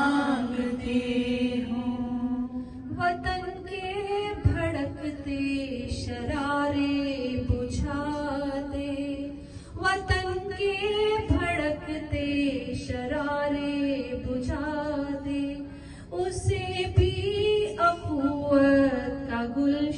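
Women chanting a naat, a devotional recitation in praise of the Prophet, in long phrases of held notes that glide up and down in pitch. A few short low thumps come through now and then.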